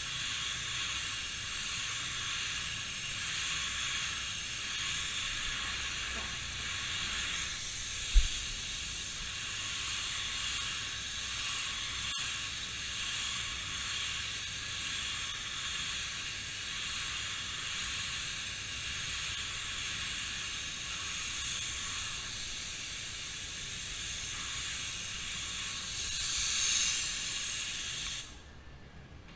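Gravity-feed spray gun spraying primer: a steady hiss of compressed air and atomised paint, swelling briefly near the end before cutting off suddenly as the trigger is released. A single short low thump about eight seconds in.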